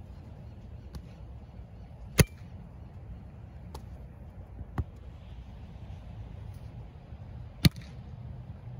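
Sharp smacks of a beach volleyball being struck by hand: two loud ones about two seconds in and near the end, with a few fainter hits between, over a steady low rumble.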